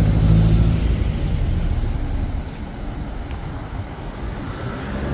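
A motor vehicle engine running close by, its low hum fading away over the first two seconds, leaving steady outdoor background noise.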